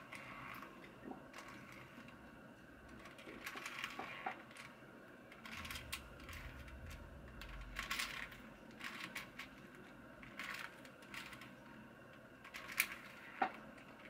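4x4 Rubik's cube being turned through the PLL parity algorithm: faint plastic clicking and scraping of the layers in irregular runs, with two sharper clicks near the end.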